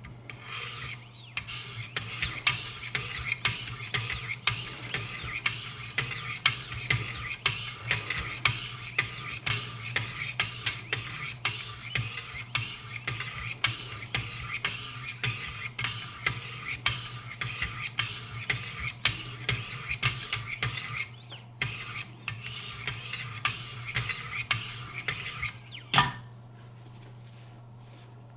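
Knife blade stroked against 600-grit Wicked Edge sharpening abrasives, alternating sides, a rasping scrape in quick repeated strokes about twice a second. The strokes stop with a click near the end.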